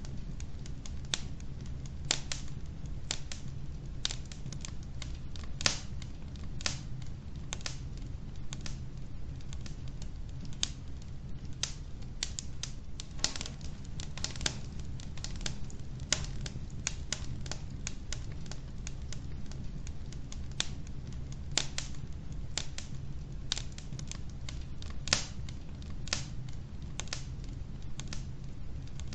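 Wood logs burning in a fireplace, crackling with frequent irregular sharp pops of varying loudness over a steady low rumble.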